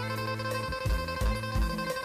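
Background music: plucked guitar over a steady low beat.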